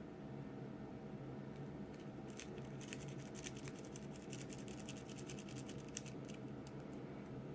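Lock pick and tension wrench working the pins of a 50 mm brass-bodied Stanley padlock. A quick run of small metallic clicks and scrapes comes from about two and a half seconds in to about six and a half, over a steady low hum.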